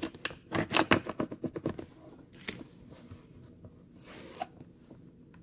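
Plastic squeegee rubbing a vinyl decal down through its transfer paper onto a hard plastic case. It makes quick, rapid scraping strokes for the first couple of seconds, then a few scattered rubs.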